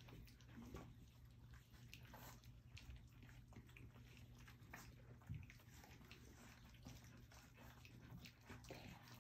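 Faint wet lapping and smacking of a litter of almost four-week-old puppies eating their first meal from a stainless steel saucer bowl: many small irregular clicks and licks, with a steady low hum underneath and a soft bump about five seconds in.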